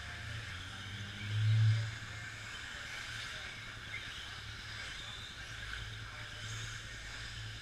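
Radio-controlled 2WD short course trucks racing on an indoor dirt track: a steady mix of motor whine and tyres on dirt over a low hall hum, with a louder low rumble swelling briefly about one and a half seconds in.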